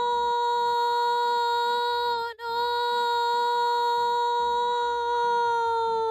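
A woman's voice holding a long, steady 'nooo' note in imitation of a fire engine siren. The note breaks off briefly about two and a half seconds in, its pitch sagging into the break and climbing back out of it, then holds again.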